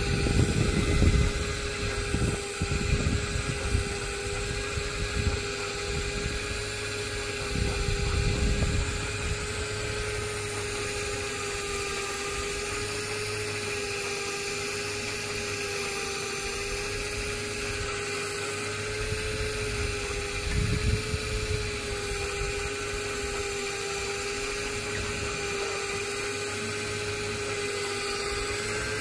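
Daiwa Seaborg 1200MJ electric fishing reel's motor running as it winds in braided line, a steady high whine that wobbles slightly in pitch. Low buffeting rumbles, like wind on the microphone, come through in the first several seconds and again about two-thirds of the way in.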